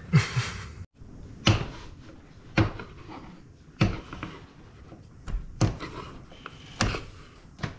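A wood chisel knocking the excess tops off wooden bungs plugged into a wooden bulkhead: about five sharp knocks, a second or so apart.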